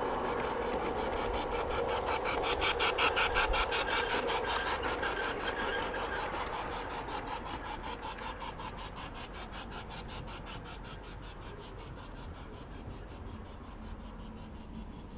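LGB G-scale model freight train rolling on garden track: a steady rolling rumble with rapid, regular clicking of wheels over the rail joints, fading as the train moves away.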